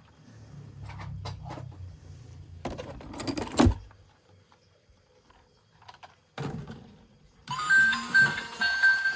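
Low rumble and light clicking of things being handled, with one loud thunk a little past a third of the way in. A bright tune of held notes starts about three-quarters of the way through.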